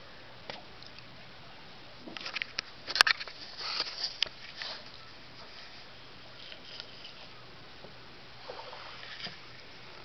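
Light splashing and sloshing of tidal-pool water with a few knocks and clicks, bunched around a sharp click about three seconds in, over a faint steady hiss.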